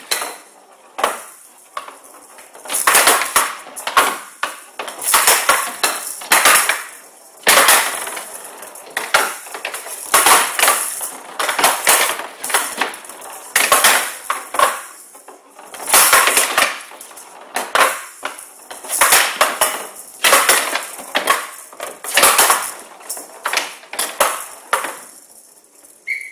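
Showdown rally: the plastic ball, with metal beads inside that rattle, is struck back and forth by wooden bats and bangs off the table's wooden side rails. There is a cluster of sharp knocks and rattling every two seconds or so.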